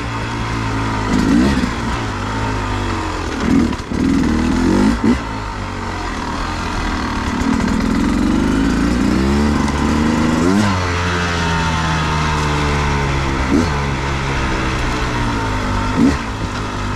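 2023 Beta 250RR two-stroke enduro engine being ridden at low to mid revs, its pitch rising and falling steadily with the throttle. Several short, sharp throttle blips are spread through.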